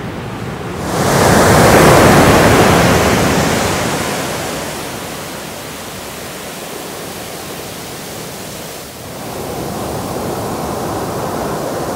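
Ocean surf breaking and washing up a sandy beach: a wave crashes loudly about a second in and fades over the next few seconds into a steady wash, and the surf builds again after about nine seconds.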